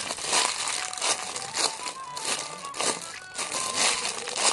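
Light background music with repeated crinkling of plastic packaging being handled.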